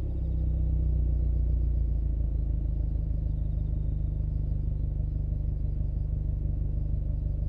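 Subaru WRX STI's turbocharged EJ20 flat-four idling steadily through an HKS Super Turbo Muffler exhaust, low and even.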